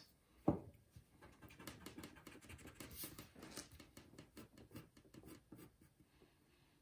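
A single knock about half a second in, then a pencil scratching on drawing paper in many short strokes, stopping near the end.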